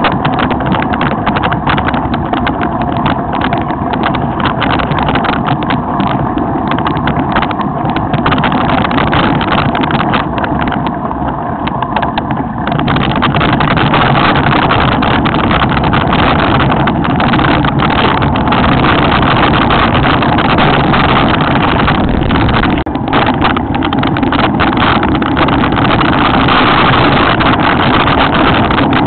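Mountain bike riding fast down rough ground: a steady rushing noise of wind and tyres on the camera's microphone, with constant small knocks and rattles from the bike. It gets louder about halfway through.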